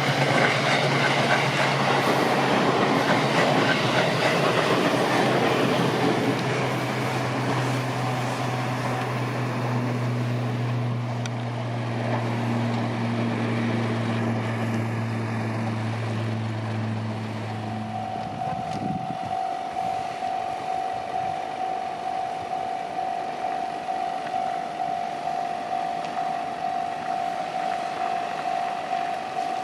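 A Chūō Main Line train passing over a level crossing: wheels clattering on the rail joints with a steady low hum, loudest in the first few seconds and easing off as it goes by. About eighteen seconds in, the hum stops and a level-crossing warning bell starts ringing, one steady tone in a regular pulse.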